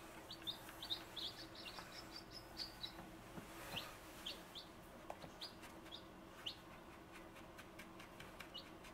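Newly hatched baby chicks peeping faintly: many short, high peeps, coming thick for the first four seconds or so and thinning out toward the end.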